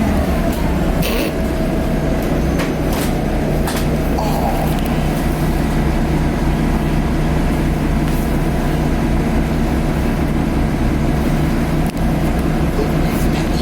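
Cummins ISL diesel engine of a 2010 Nova Bus LFS Articulated running steadily with the bus under way, heard from inside, with a steady turbo whine over it. Brief rattles and clicks come and go.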